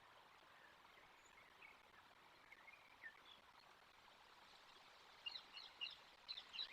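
Faint bird chirping over a steady background hiss: scattered single chirps, then from about five seconds in a quick run of louder, high chirps.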